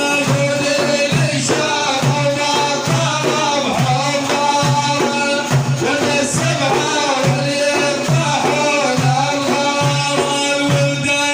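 Music accompanying an Arabic madih praise song: a wavering, ornamented melody line over a steady drum beat, with some singing.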